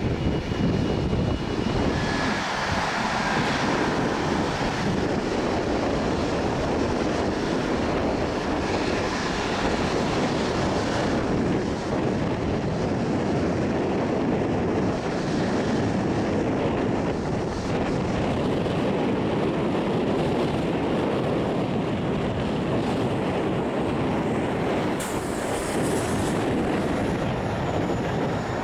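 GE90 turbofan engines of a Boeing 777-200 running at low taxi power, a steady rushing drone that holds even.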